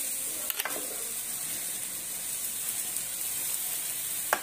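Spice masala sizzling steadily in a hot aluminium kadhai as ground soya chunks are tipped in from a metal plate. Two sharp clinks, about half a second in and near the end, as the plate knocks the pan.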